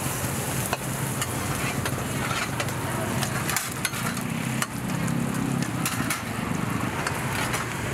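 Hot oil sizzling as a Thai omelette deep-fries, over a steady low hum of street-stall bustle, with sharp clicks of metal utensils now and then.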